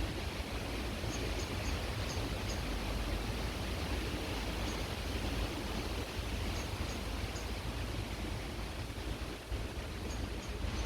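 Creek water rushing in a steady, even hiss, with a low wind rumble on the microphone. Faint short high chirps come through now and then.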